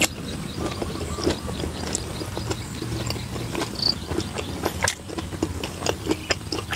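Close-up chewing of a mouthful of fermented beef tendon (som teen wua) and papaya salad: irregular wet clicks and smacks of the mouth.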